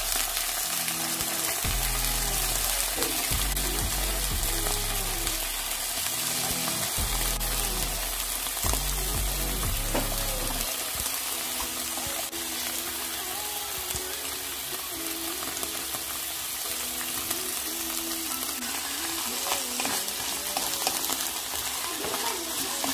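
Canned tuna sizzling as it fries in a non-stick pan, with occasional stirring from a wooden spatula. Background music plays underneath, its bass dropping out about ten seconds in.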